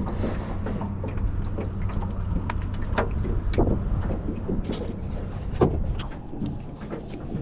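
A steady low motor hum that fades about six seconds in, over scattered knocks and clicks of fishing tackle and a caught fish being handled in an aluminum jon boat.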